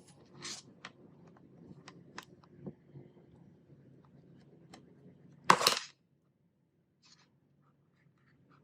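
Small clicks and taps of things being handled, with a louder, short noisy clatter about five and a half seconds in. After that it goes almost silent, with only a few faint ticks.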